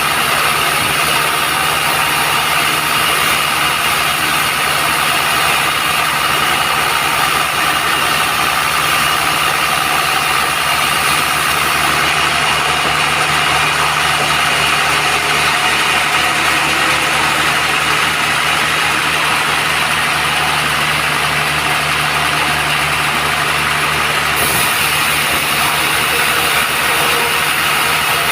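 Band sawmill running with a steady machine drone and a constant whine.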